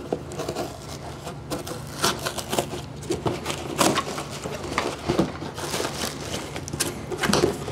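A cardboard shipping box being opened and its packing handled: irregular rustles, scrapes and small knocks.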